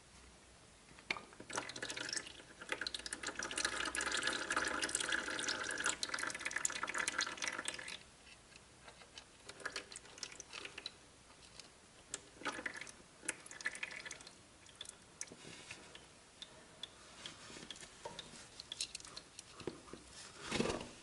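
Warm used engine oil pouring out of a Zontes U1 125 engine's drain opening as the mesh oil-filter cap comes out, a steady stream for about six seconds. It then thins to drips and small clicks of the cap being handled, with one short louder noise near the end.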